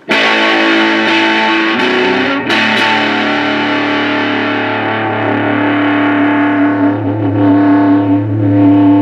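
Electric guitar in humbucker mode (Fender American Special Strat with Hot Rails-style rail pickups) through a Mooer Solo distortion pedal into a Bugera V22 tube amp, playing heavily distorted chords. A chord is struck at the start, picked again a couple of times around two to three seconds in, then left to ring with long sustain.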